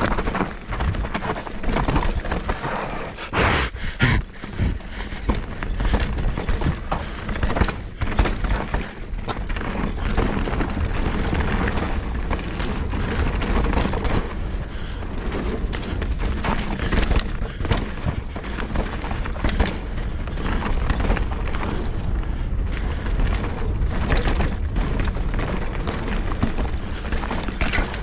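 Mountain bike descending rough dirt singletrack at speed: steady wind rush on the action camera's microphone with tyres rolling over dirt and roots, broken by frequent clattering knocks from the bike hitting bumps, a dense cluster of them a few seconds in.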